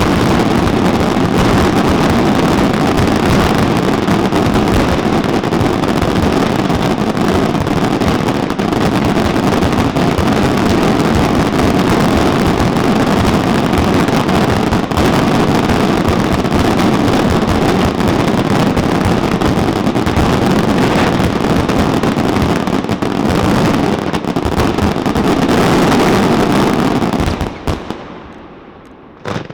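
Aerial fireworks in a dense barrage, the bangs coming so fast they run together into one continuous din. It stops suddenly about 27 seconds in, with one last bang near the end.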